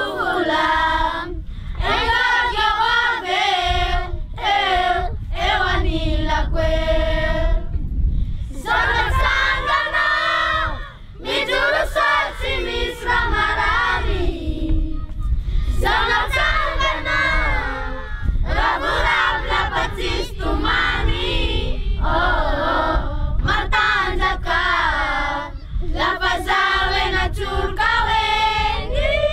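A group of children singing together unaccompanied, line after line of a song with short breaks between phrases.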